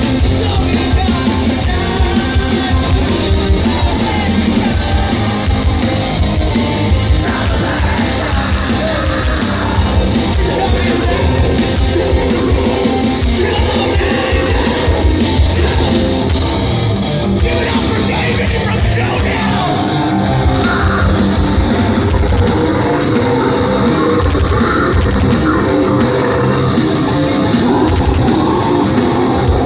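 Live metalcore band playing loud through a festival PA: distorted guitars, bass and pounding drums, with shouted and sung vocals.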